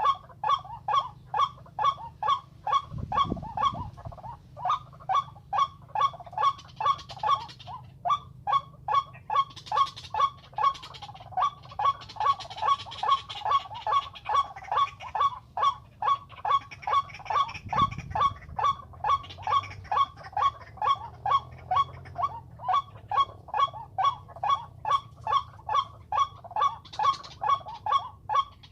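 White-breasted waterhen calling: a monotonous train of short, nasal, honk-like notes, about two to three a second without a break. Two dull low thumps are heard, a few seconds in and again past the middle.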